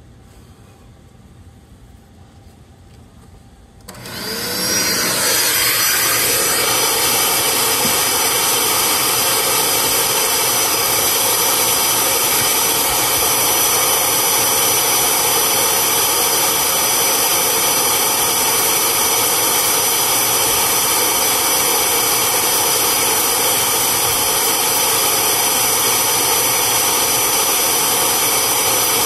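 Bissell Spot Clean Pet Pro portable carpet extractor's vacuum motor switched on about four seconds in. It spins up over a second or two, then runs steadily and loudly with a high whine.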